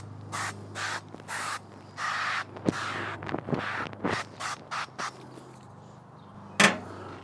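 Aerosol cooking spray hissing in a dozen or so short spurts, the later ones shorter, as it coats a ceramic casserole pan. A single sharp click near the end.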